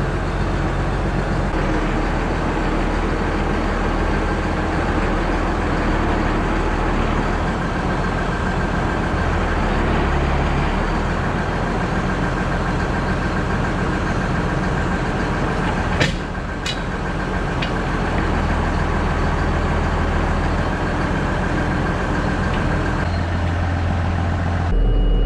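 Large farm tractor's diesel engine running steadily while its three-point hitch is brought onto a concrete hitch weight. A single sharp metal clank sounds about two-thirds of the way in, followed by two lighter clicks.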